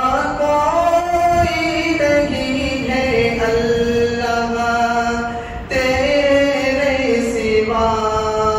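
A man's unaccompanied devotional chanting, sung in long held notes that glide from pitch to pitch, with a short pause for breath about five and a half seconds in.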